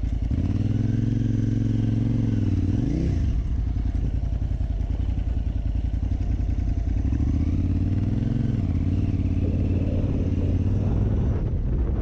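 KTM 950 Super Enduro R's V-twin engine running at low speed, its pitch rising and falling a few times with the throttle as the bike pulls away slowly.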